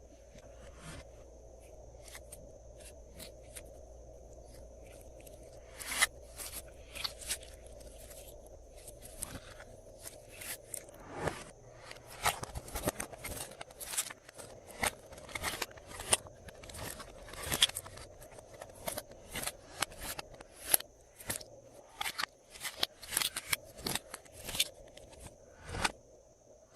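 Glossy slime being squished and stretched by hand, giving irregular sharp clicks and crackles. They are sparse at first and come thick and loud from about ten seconds in.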